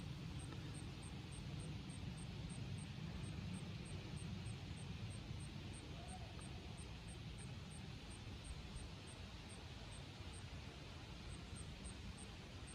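Faint, steady low background rumble outdoors, like distant engine noise, with a faint, evenly repeating high ticking.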